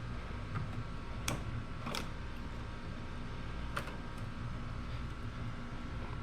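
Three separate light clicks of metal parts and tools being handled while the cylinder is worked off a Yamaha YZ125's two-stroke engine, over a steady low hum.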